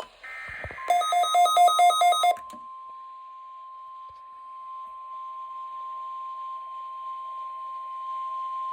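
NOAA Weather Radio weekly test alert tones. A brief burst of rapid pulsing digital data tones (the SAME header) gives way, about a second in, to the steady 1050 Hz warning alarm tone: one unwavering pitch held to the end.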